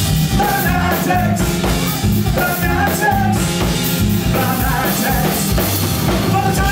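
Live rock band playing an instrumental passage: a harmonica played into the vocal microphone leads over acoustic guitar, bass guitar and a drum kit with a steady beat.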